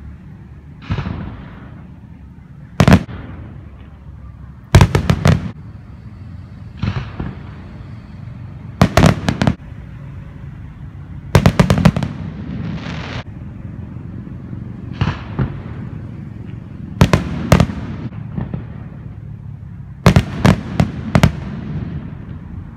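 A display of aerial firework shells, 1- to 4-inch, bursting in about six volleys of sharp bangs, some single and most in quick clusters of several reports. Between the volleys come softer hissing swells that fade away, over a low rumble.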